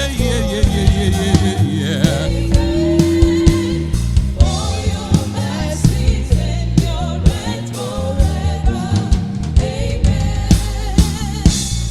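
Live gospel worship music: a band with drum kit playing a steady beat over sustained low bass notes, with singing over it.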